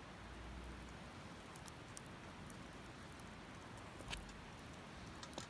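Wood fire burning with a low steady hiss and scattered small crackles, with a sharper pop about four seconds in and another near the end.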